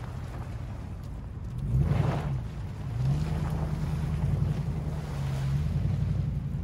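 Hummer H2's V8 engine pulling away over rough gravel and mud. It surges loudly about two seconds in, then revs up and holds higher for a few seconds before easing back.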